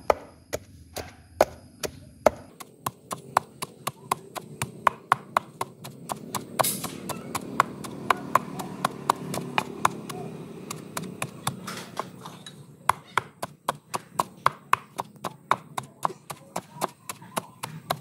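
Wooden pestle pounding a yellow spice paste in a stone mortar: a steady rhythm of about three strikes a second.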